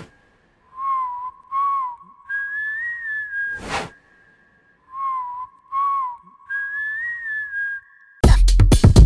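Background music: a whistled tune repeating a short, lilting phrase, broken by a brief rush of noise at the start and again about four seconds in. Near the end an electronic track with a drum-machine beat cuts in loudly.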